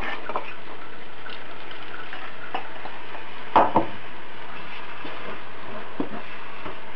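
Wooden spoon stirring a thick tagarninas (golden thistle) stew in a frying pan, with a steady sizzle from the pan and small scrapes and clicks. Two knocks against the pan come close together about three and a half seconds in.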